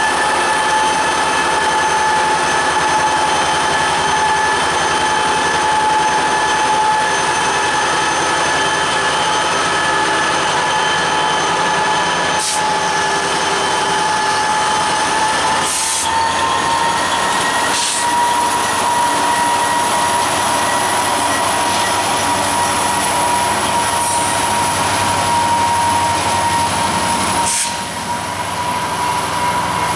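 Freight train led by an EMD diesel locomotive rolling slowly past, with a steady high-pitched wheel squeal that rises slightly in pitch about halfway through. A few sharp clicks sound over the rumble.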